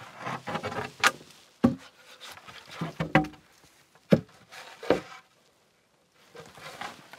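Rough-sawn wooden boards being handled: about five sharp wooden knocks as they are picked up and set down, with some scraping between.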